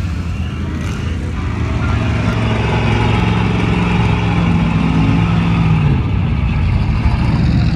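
Off-road truck engine running steadily while driving through mud, with a low, even rumble; the pitch eases up a little, then drops back about six seconds in.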